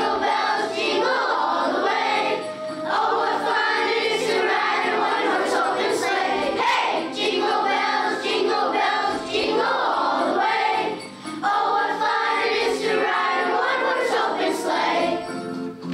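A children's choir of fourth and fifth graders singing a Christmas carol with musical accompaniment.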